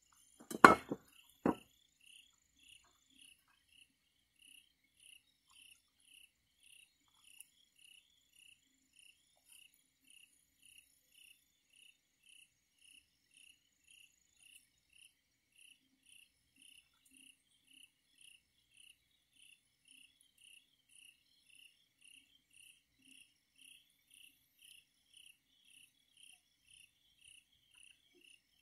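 Crickets chirping in a steady, even rhythm, with a few sharp knocks in the first two seconds.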